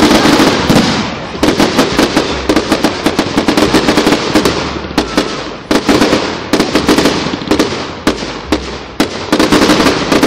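Display fireworks going off in a rapid barrage: many bangs and crackles in quick succession, with brief lulls between volleys.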